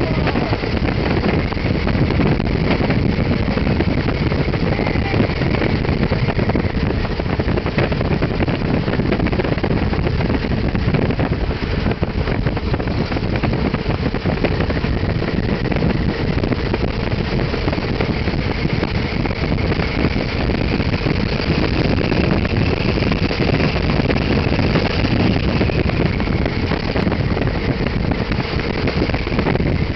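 Engine of a 1929 biplane running steadily in flight, heard under a loud, even rushing noise, with a faint tone that drifts slowly in pitch.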